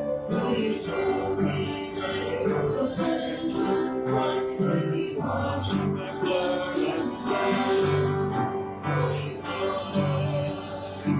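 Worship music: singing and guitar over a steady beat.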